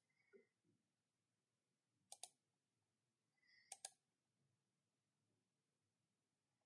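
Two faint double clicks of a computer mouse button, about two and about four seconds in, over near silence.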